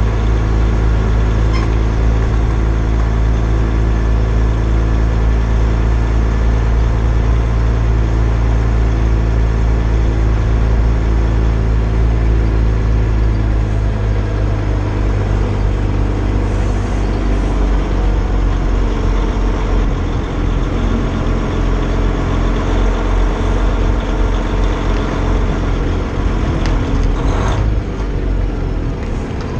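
Semi-truck diesel engine running steadily at low revs as the tractor-trailer is manoeuvred. The engine note changes about halfway through. A short hiss comes near the end.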